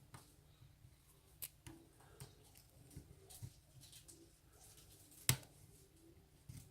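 Lock pick and tension wrench working inside an Abus 54T1/50 padlock: scattered faint clicks and scrapes of the tools on the pins, with one sharper click about five seconds in.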